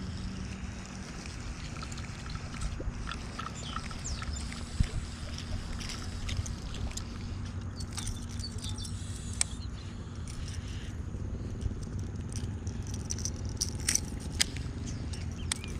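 A Daiwa Tatula baitcasting reel being cranked as a lure is reeled in, over a steady low rumble. Light ticks are scattered through it, with one sharp click about five seconds in.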